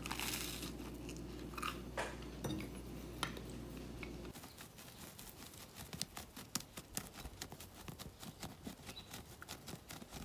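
A steady low indoor hum with a few clicks, cut off about four seconds in. Then a dog digging in dry soil with its paws and snout: quick, irregular scratching and scraping of dirt.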